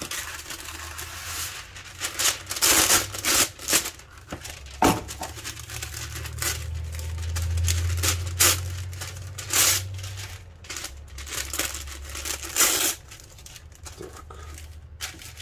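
Paper being handled, crinkling and tearing in sharp crackly bursts, with a low hum for several seconds in the middle.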